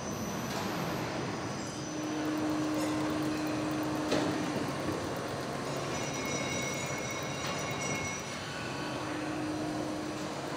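Van assembly-line machinery running on the factory floor: a steady mechanical rumble and hiss with a low hum that comes and goes, and a single sharp clank about four seconds in.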